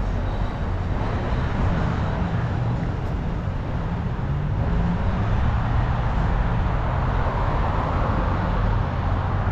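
Road traffic on a busy multi-lane street: a steady rumble of cars driving past, swelling a little near the end.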